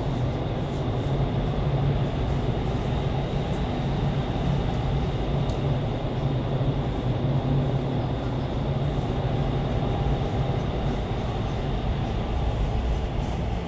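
Vertical wind tunnel for indoor skydiving running at flying speed: a steady rush of air and fan noise over a constant low hum.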